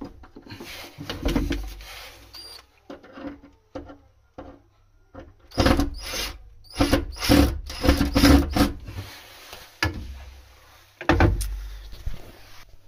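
Plastic waste pipe fittings being handled and clipped into place: a string of knocks, clicks and rattles, with a busy run of louder knocks from about five to nine seconds in and another knock near the end.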